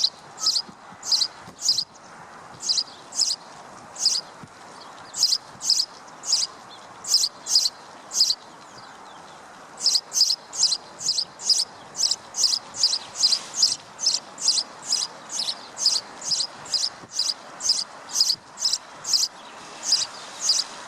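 A high-pitched chirp repeated at an even pace of about two a second, pausing briefly around the middle, over a steady faint background hiss.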